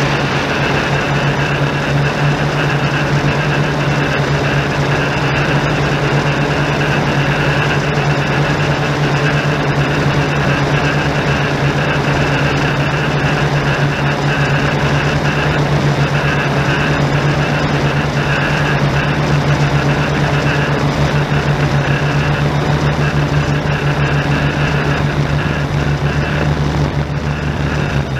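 Yuneec Typhoon G drone's electric motors and propellers running in steady flight: a constant low hum with a higher whine, picked up by the camera on the drone itself.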